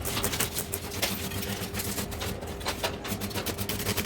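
Electric arc welding on a metal sign frame: an irregular crackling with a steady hum beneath it.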